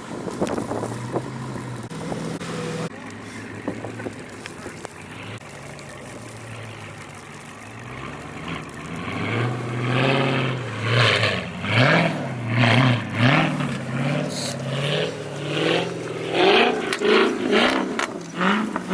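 Scat Pack's V8 engine running low and steady, then from about eight seconds in revving up and dropping back again and again, a rise and fall every second or so: the car is stuck in deep snow and the driver is trying to power it free.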